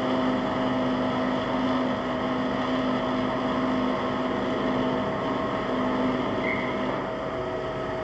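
Steady drone of a large passenger ferry's engines and machinery as it comes in to berth. There is a constant hum tone over the noise, and a lower hum that wavers and fades out about seven seconds in.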